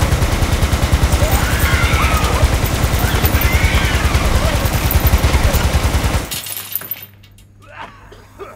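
Belt-fed machine gun on a tripod firing one long, rapid, continuous burst of about six seconds that stops abruptly. A much quieter stretch with a few faint clicks follows.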